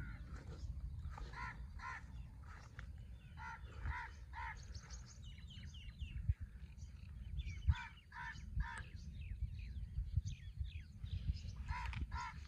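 Crows cawing in short runs of two or three caws about half a second apart, four runs in all, with smaller birds chirping in between. A steady low rumble runs underneath.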